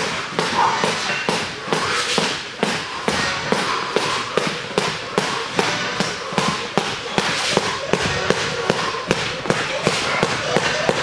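Skipping rope slapping a gym mat in a steady rhythm, about two slaps a second, with feet thudding and shuffling from several people training.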